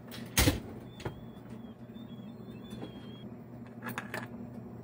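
Sugon hot air rework station blowing at 420 degrees with a steady low hum, heating a stuck component to desolder it from a graphics card. A sharp click about half a second in and a few lighter clicks later, from tools working on the board.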